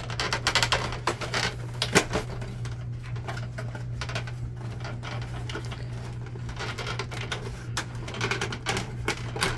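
Plastic clicking and creaking as hands pry and flex the plastic side panel of a Canon Pixma MX870 printer to free its clips. It is a rapid run of small clicks with a sharper snap about two seconds in.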